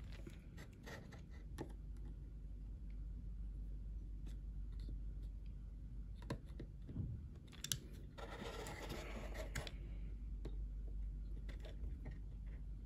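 Faint scattered clicks and scratches of plastic parts as a small screwdriver pries and presses at the housing of an early Mercedes power seat switch during reassembly, with a longer scraping rub about two-thirds of the way through.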